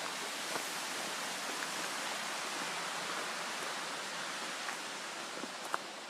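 Steady rush of a creek and small waterfall, easing off slightly near the end, with a few faint footsteps on a gravel trail.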